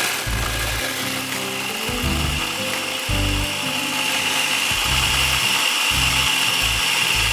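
Electric food processor running continuously, grinding chocolate sandwich cookies with cream filling into crumbs. A steady whir whose high whine grows stronger about halfway through.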